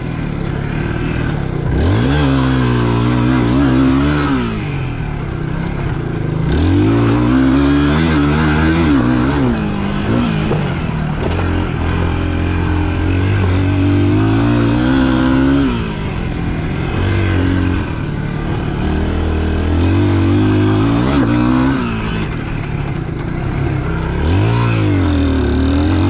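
Dirt bike engine revving up and easing off over and over, its pitch climbing and dropping every few seconds as it is ridden. Heard through a helmet-mounted GoPro whose mics have been fitted with a wind-noise mod, so the engine comes through clearly with little wind rumble.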